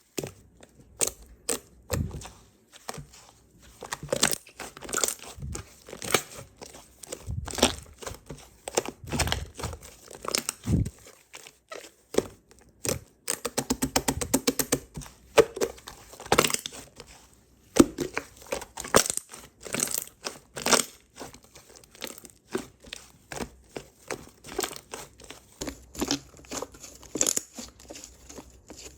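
Slime being squished and pulled by hand, with irregular sticky pops and crackles. About halfway through comes a quick run of rapid crackling.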